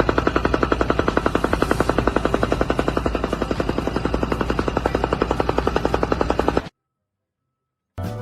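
A percussive power tool hammering rapidly and steadily at about ten blows a second over a low motor hum, cutting off abruptly near the end.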